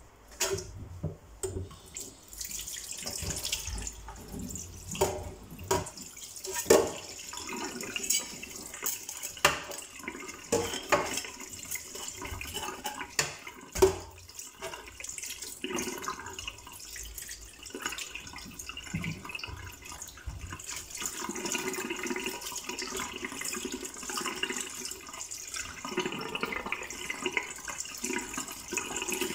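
Kitchen tap running into a stainless steel sink while whole tilapia are rinsed and rubbed by hand under the stream. The water starts about two seconds in, and a few sharp knocks from handling in the sink stand out above it.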